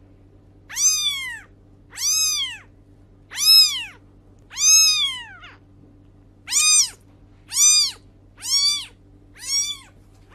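Young kitten mewing: about eight high-pitched mews in a row, roughly one a second, each rising then falling in pitch.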